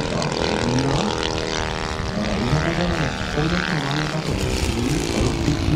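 Valach VM 120 B2-4T two-cylinder four-stroke petrol engine and propeller of a giant-scale RC Zlin XII model in flight, a steady drone.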